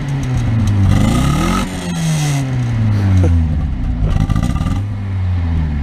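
Mazda Miata's four-cylinder engine revved twice through a makeshift twin-pipe exhaust, the pitch climbing and falling back each time before settling to idle.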